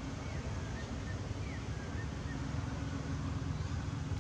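Steady low outdoor rumble and hiss, with a few faint, short, high chirps.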